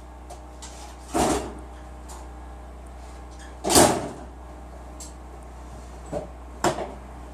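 Clunks and knocks from car panels being handled while the hood is opened: two loud ones about a second and four seconds in, then two lighter ones near the end.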